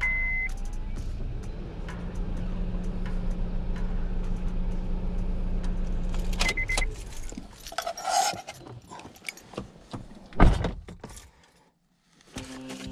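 A steady low hum from the car for the first half. It is followed by a short high chime, then a set of keys jangling as the key ring is handled and pulled from the ignition, and a single loud knock about ten seconds in.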